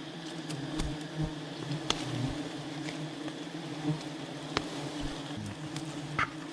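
A swarm of wild honeybees buzzing steadily around their nest, with a few sharp clicks over the hum.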